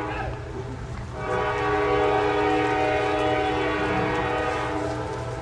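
CSX diesel locomotive air horn sounding. The tail of a short blast comes right at the start, then one long steady chord blast begins about a second in and lasts about four seconds. Beneath it runs the low rumble of the approaching locomotives' diesel engines.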